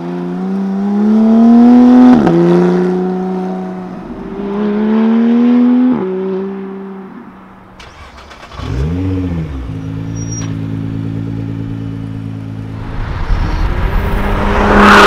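A Porsche 911's flat-six accelerating hard through two gears, its pitch rising and dropping sharply at each upshift. Then a Nissan GT-R's twin-turbo V6 is blipped once and settles to a steady idle, and near the end a loud, rising rush of a car accelerating hard.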